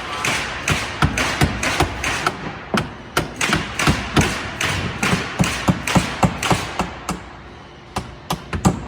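Hammer blows driving large nails into wood framing, a steady run of strikes about three a second. The blows pause briefly near the end, then start again.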